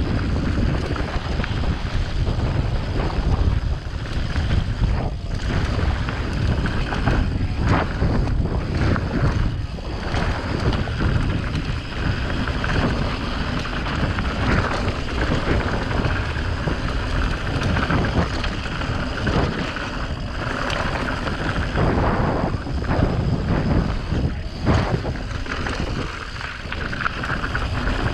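Wind buffeting the camera microphone while a Santa Cruz mountain bike rolls fast down a dirt trail. The tyres rumble over dirt and rocks, and the bike clatters and knocks over the bumps again and again.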